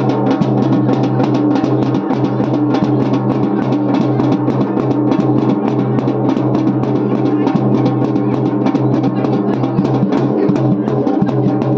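Traditional drum, set flat on the floor and beaten fast and steadily with the hand, several strokes a second, over a steady held tone, as devotional temple music.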